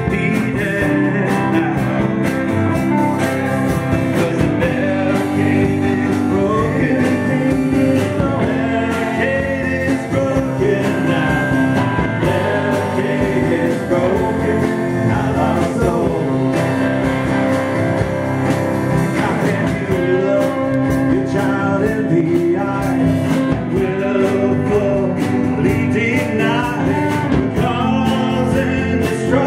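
Live band playing a rock-country song: a man singing lead over strummed acoustic guitar, electric bass, electric guitar and drums.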